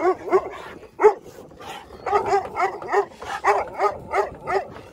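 Dogs barking in a run of short, quick barks, about three a second, with a single loud bark about a second in.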